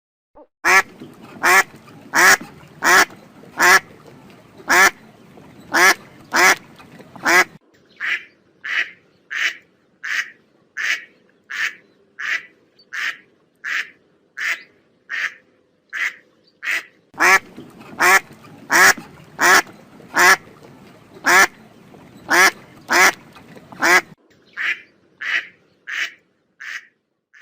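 A duck quacking over and over, short calls at a steady pace of about one and a half a second.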